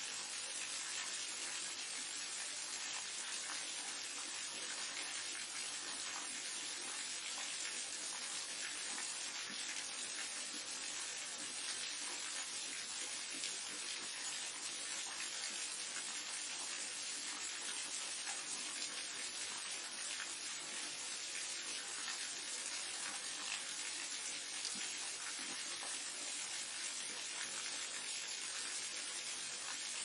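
Waterfall: a steady, unbroken rush of falling water, mostly a bright hiss with little deep rumble.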